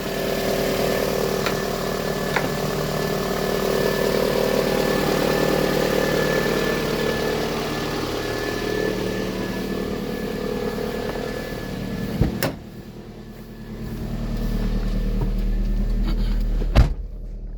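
Toyota RAV4 engine idling steadily with the alternator charging. About twelve seconds in, a sharp click is followed by a sudden drop in the sound. Later a low hum builds up, and another click comes near the end.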